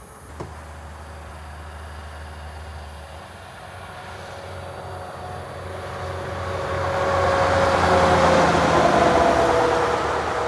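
B-double semi-trailer truck approaching and passing on the highway: engine and tyre noise swell to a peak about eight seconds in, then fade, the engine note dropping slightly in pitch as it goes by.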